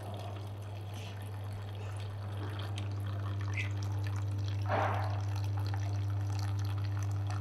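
Self-service coffee machine dispensing coffee into a paper cup: a steady pump hum under the pouring and trickling of the liquid, with a short louder spurt a little before the middle of the pour.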